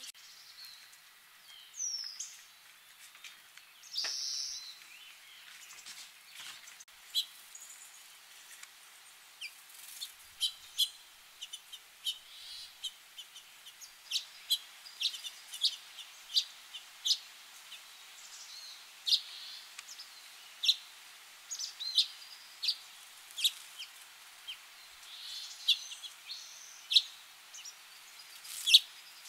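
Small birds chirping: short, sharp chip notes repeated irregularly, one or two a second, with a brief downward-sliding whistle about two seconds in.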